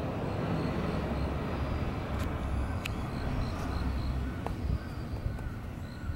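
Low, steady traffic rumble from the street, easing off about four seconds in, with faint high chirps above it.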